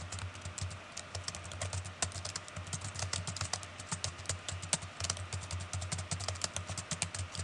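Typing on a computer keyboard: a quick run of keystroke clicks, about five a second, over a faint low hum.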